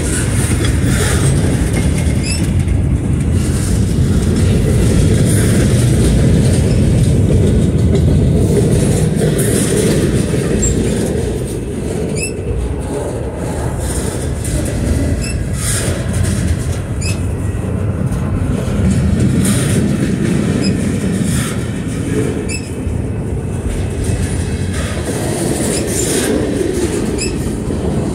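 Freight train's cars rolling past close by: a steady rumble of steel wheels on rail, louder in the first half, with scattered sharp clicks as wheels cross rail joints.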